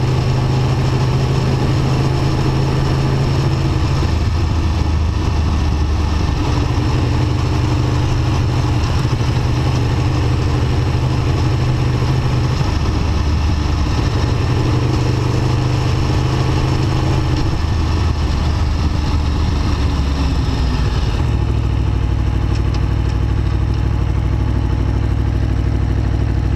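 Aprilia Tuono V4 1100 RR's V4 engine running at low revs in town, its note stepping up and down with throttle and gear changes, then settling to idle about 21 seconds in as the bike stops; wind hiss falls away at the same moment.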